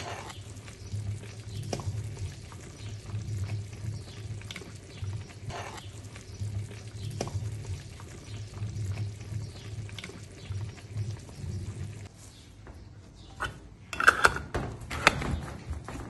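Cooked purslane conserve, wet and thick in its sauce, being filled into a glass jar: wet pouring and sloshing with small clicks, and a few sharper knocks near the end.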